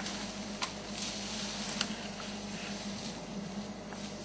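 An African elephant browsing in a leafy bush: a few sharp snaps of twigs, the first about half a second in and another near two seconds, over a steady hiss and a low hum.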